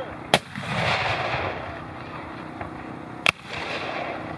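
Two cannon shots from 3-inch ordnance rifles, muzzle-loading field guns firing blank charges. The first comes just after the start and the second about three seconds later. Each is a sharp crack followed by a rolling echo.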